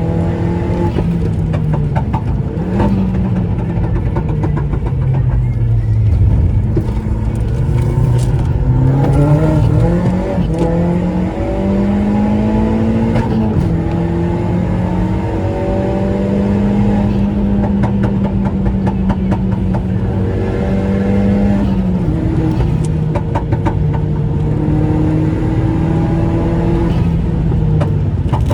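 Seat Leon 1.8T's 20-valve turbocharged four-cylinder engine accelerating and cruising: its note climbs with revs, holds steady, and drops at each gear change or lift-off several times. Short rapid turbo flutter at some of the drops.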